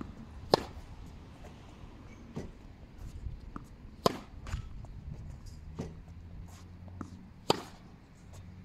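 Tennis rally: three sharp strikes of a racket on the ball, forehands hit about three and a half seconds apart, with fainter pops between them.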